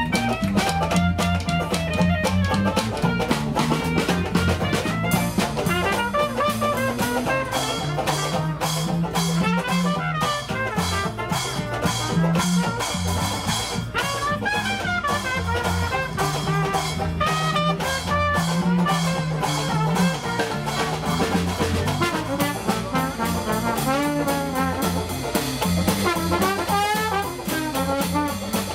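Dixieland jazz band playing live, with trumpet and other brass leading over guitar and a moving bass line to a steady beat.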